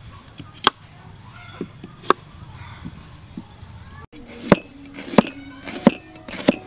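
Cleaver chopping peeled green bananas on a plastic cutting board: two separate knocks in the first half, then four chops about two-thirds of a second apart near the end.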